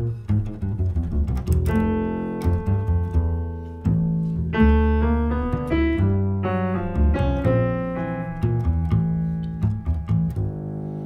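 Jazz duo of Steinway grand piano and plucked upright double bass: piano chords over low bass notes.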